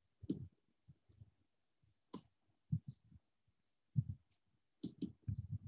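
Faint computer mouse clicks with soft low thumps between them, a handful of short separate knocks.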